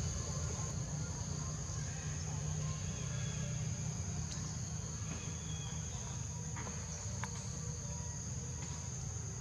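Steady high-pitched drone of insects calling, over a low steady rumble, with a few faint ticks.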